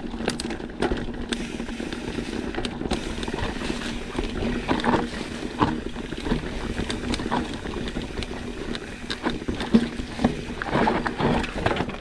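Bike rattling and clattering down a rocky trail, with many sharp knocks over a steady hum and a constant rushing noise.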